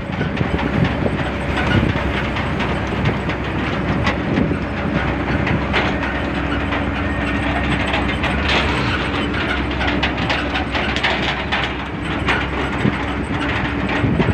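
Wind and road noise while riding in the open cargo bed of a moving truck, with the bed's slatted rails and load rattling and knocking, thickest in the middle. A steady hum from the truck's drive runs underneath from about a third of the way in.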